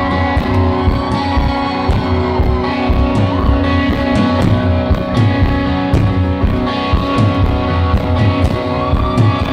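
Live rock band playing an instrumental break: electric guitar lead with bending notes over strummed guitar, bass and a steady drum beat.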